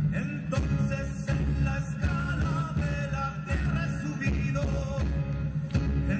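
Live band music: guitars and bass over a steady beat, with a voice singing.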